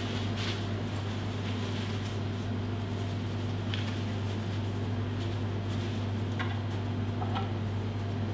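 Steady low machine hum of kitchen equipment, with a few faint light clicks from metal tweezers handling the garnish.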